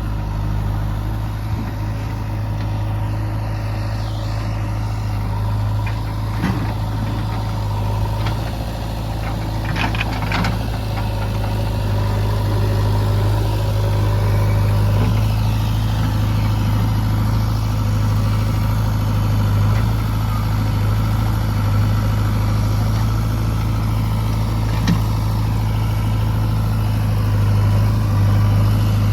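Heavy diesel engine running steadily, with a few brief knocks now and then.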